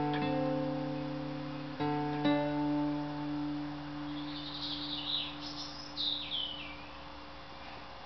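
Acoustic guitar strummed twice, once at the start and once about two seconds in, each chord left to ring and slowly fade. A songbird sings a short run of quick warbling, whistled phrases from about four to seven seconds in.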